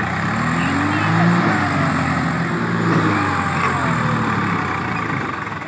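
Swaraj 744 tractor's three-cylinder diesel engine revving hard under heavy load, its pitch rising and falling, as the stuck tractor spins its rear wheels in soft soil trying to pull a fully loaded trolley.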